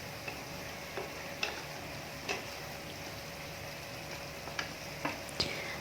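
Chicken pieces and button mushrooms sizzling gently in a pan over a low flame, a faint steady frying hiss broken by a few light ticks.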